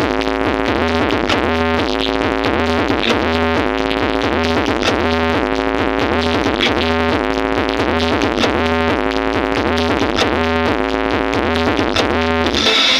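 Loud electronic dance music with a fast synthesizer melody over heavy, sustained sub-bass, played through a large outdoor sound system. A bright hiss of cymbals comes back in near the end.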